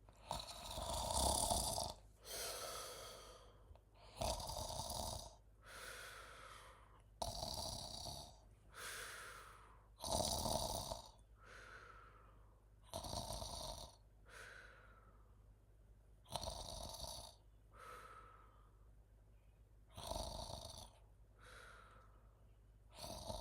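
A person snoring loudly and rhythmically: about eight breaths, one roughly every three seconds, each a loud rasping snore followed by a softer breath.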